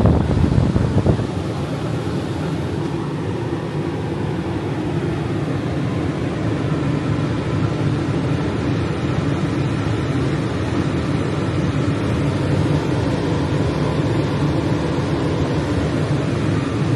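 Old rooftop RV air conditioner running, heard from inside the travel trailer: a loud, steady fan and compressor hum, with a few knocks in the first second.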